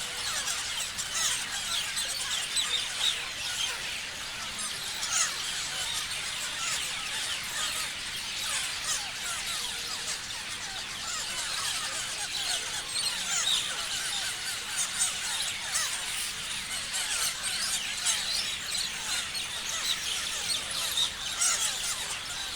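Many parrots chirping at once: a dense, continuous chatter of short, high overlapping calls.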